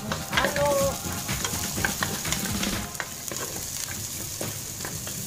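Onions and garlic sizzling in hot olive oil in a metal pot, stirred with a wooden spatula that knocks and scrapes against the pot again and again.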